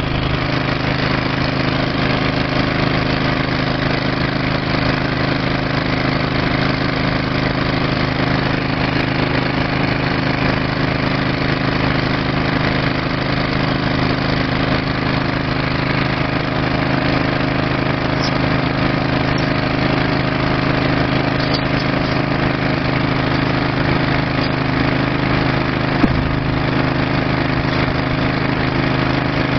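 Small gasoline engine of a Honda-powered hydraulic power pack running steadily at constant speed, driving a hydraulic rail tool. Near the end, a single sharp click.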